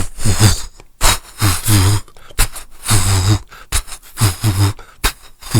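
Beatboxing: mouth-made sharp snare-like clicks alternating with deep bass hums and pitch-bending vocal sounds, in a choppy repeating pattern of short bursts.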